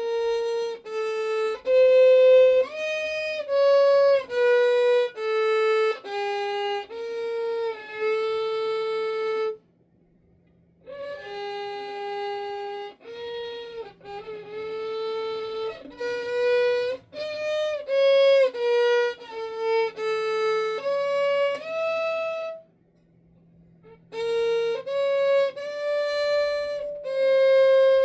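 Solo violin playing a melody of bowed notes, one note at a time, in three phrases with short pauses about ten seconds in and again near the end.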